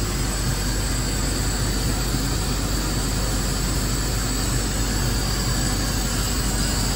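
Laser cutter running at the start of a job, a steady rushing mechanical noise with a low hum underneath.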